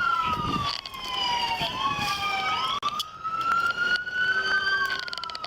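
Several emergency-vehicle sirens wailing together, their pitches slowly rising and falling out of step with one another.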